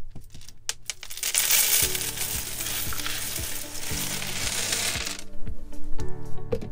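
A cup of small LEGO plastic bricks and tiles poured out onto a hard tabletop: a few clicks as the cup is tipped, then a dense rattling clatter of pieces cascading and spilling that lasts about four seconds and stops suddenly.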